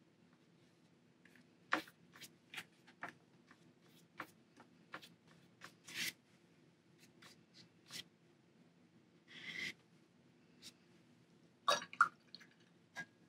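Watercolor brush at work on paper and palette: a scattering of quiet short taps and scratches, with a brief swish about two-thirds of the way through and two sharper taps near the end, over a faint steady low hum.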